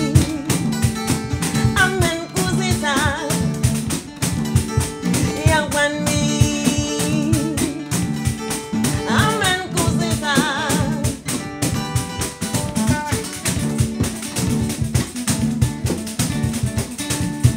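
A band playing live: a vocalist sings short phrases over plucked guitar and a steady drum beat. The voice drops out in the last several seconds, leaving guitar and drums.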